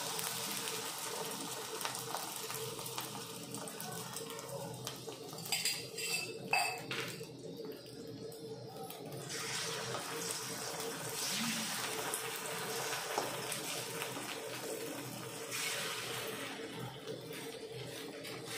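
Beaten eggs sizzling in hot oil in a steel kadai, a steady hiss that swells and fades as they cook. A flat steel spatula scrapes and clicks against the pan, with a few sharp clicks about six seconds in.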